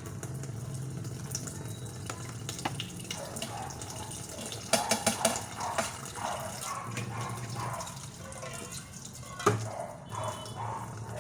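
Water running from a kitchen tap into a sink, with a quick run of sharp clinks of dishes about five seconds in and a single knock near the end.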